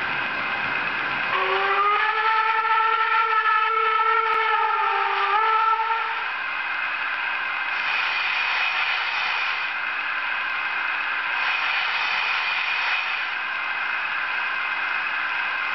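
Model steam locomotive's sound decoder: a steam whistle sounds for about four and a half seconds, starting about a second in and sagging in pitch as it stops. After it comes a steady hiss of steam, with two louder spells of hissing.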